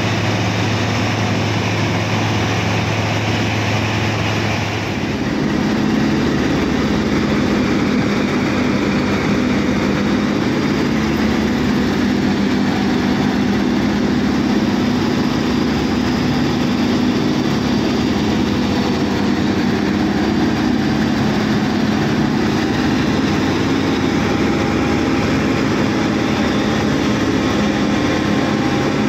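Diesel engine of a crawler bulldozer, heard from on the machine, running steadily; about five seconds in its note steps up to a higher engine speed and holds there.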